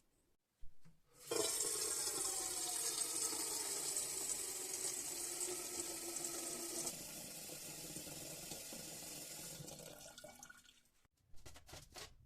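Tap water running into a whistling kettle, filling it, with a gliding tone under the splashing. It runs for about nine seconds, drops a little partway through, then stops, and a few light knocks follow near the end.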